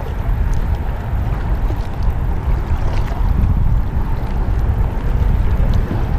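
Kayak paddle strokes swishing through the water, with drips falling from the blades, over a steady rumble of wind on the microphone.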